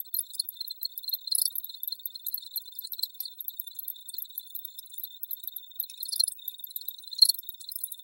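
Crickets chirping: a dense chorus of rapid, high-pitched overlapping chirps, with a few louder chirps standing out about a second and a half in and again near the end.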